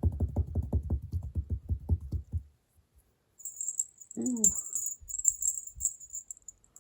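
Cat tussling with a fabric fish toy: a fast run of soft thumps, about eight a second, for over two seconds. A high rattling jingle follows through the second half.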